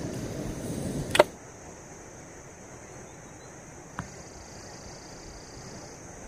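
Camp gas stove burner running with a low steady rush, cut off about a second in by a short loud swish. Then quiet night ambience with a faint steady high whine and a single small click.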